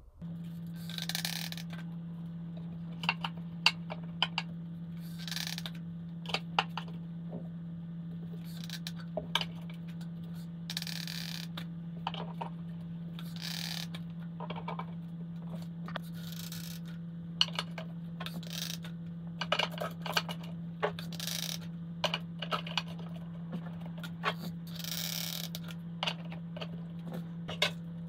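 Rocks and soil being placed by hand in a glass tank on a foam-board frame: scattered light clicks and knocks of stone, short scrapes, and several brief hissy rushes of sprinkled soil, over a steady low hum.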